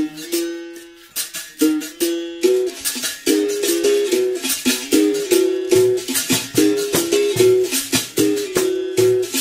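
Berimbau playing: the steel string is struck with a stick and moves between a few buzzing pitched tones, with the caxixi rattle shaking on the strokes. The piece begins with sparse notes and settles into a steady, quick rhythm after about two and a half seconds.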